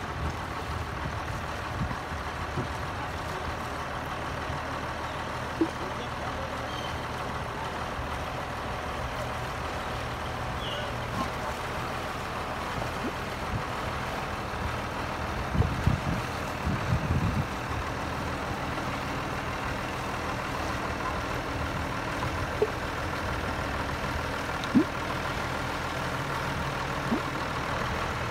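Ford farm tractor engine running steadily while towing a loaded boat trailer, with a cluster of low knocks and rattles about halfway through.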